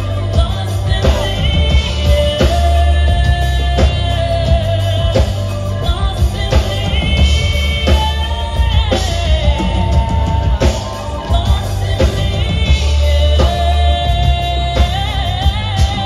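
Live band music: a woman singing a melody into a microphone over a steady drum beat, heavy bass and keyboard, loud through a club sound system.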